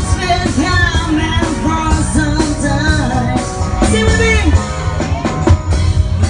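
Live rock band playing: a woman singing into a microphone over electric guitar and a drum kit, with a heavy low end.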